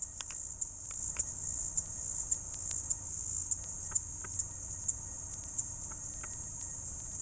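Steady high-pitched insect chorus, as of crickets, pulsing about twice a second, with a few faint ticks.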